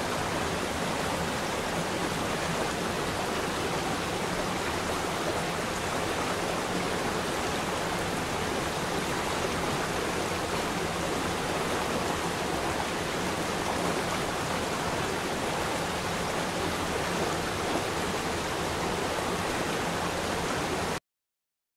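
Steady, even rushing noise like running water or pink noise, the masking bed of a subliminal audio track. It stops abruptly near the end.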